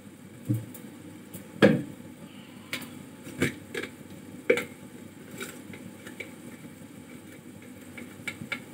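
Metal kitchen utensils clinking and knocking against a steel pan: a dozen or so scattered, irregular knocks, the loudest about two seconds in, over a low steady background.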